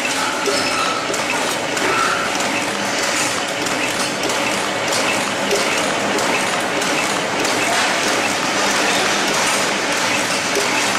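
Automatic tea bag packing machine running: a steady, dense mechanical clatter of rapid clicks.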